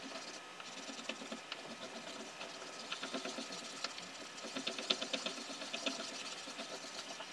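Sheet of printing paper being rubbed down by hand onto an inked woodcut block: quick, repeated scratchy strokes, busiest about four to six seconds in, as the paper is pressed into the ink to take the print.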